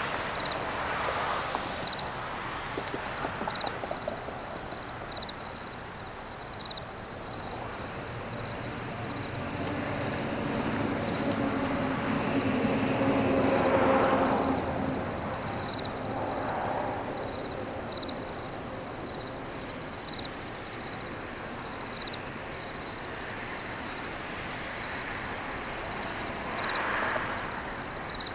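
Outdoor ambience: insects chirping in a steady high rhythm, with a passing motor's hum swelling up to its loudest around the middle and fading away.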